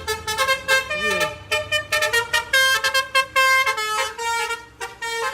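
Telolet horn, a multi-tone musical bus horn, playing a quick melody of short notes in rapid succession, with a few longer held notes midway.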